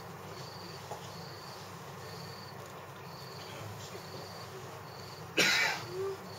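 A single person's cough about five seconds in, with a faint high chirp repeating about once a second throughout.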